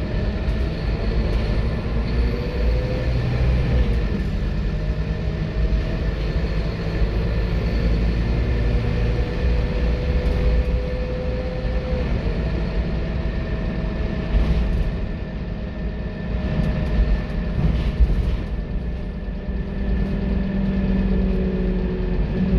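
Scania K230UB bus's rear-mounted five-cylinder diesel engine pulling the bus along, heard from inside the saloon. Its pitch climbs steadily, drops sharply about halfway through as the gearbox changes up, then climbs again. A few knocks and rattles come through in the second half.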